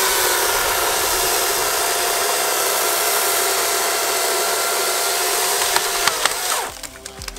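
Cordless battery chainsaw cutting steadily through a tree trunk with a held whine that sags slightly under load. It stops about six and a half seconds in, and sharp cracking and snapping follow as the tree breaks and starts to fall.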